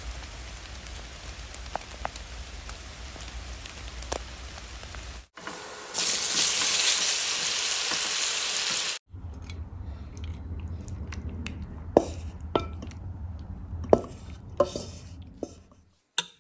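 Rain falling steadily with a few drop ticks for about five seconds. Then mushrooms sizzle loudly as they fry in a hot wok for about three seconds. Then come a few sharp clinks and knocks of kitchen utensils.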